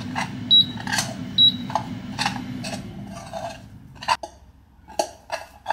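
A metal utensil knocking and scraping against a saucepan as cooked rice is spooned out, with sharp clinks about every half second. A steady low hum runs under it and stops about four seconds in.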